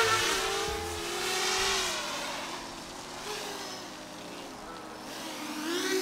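7-inch FPV quadcopter's motors and propellers whining in flight, the pitch rising and falling with throttle. It is loudest at the start as the quad passes close, fades, then swells again near the end with a falling pitch.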